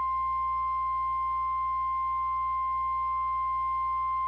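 Emergency alert attention tone: a single steady pure tone at about 1050 Hz, the NOAA Weather Radio warning alarm tone, sounding unbroken with a fainter overtone and a low hum beneath it. It signals that a warning message is about to be broadcast.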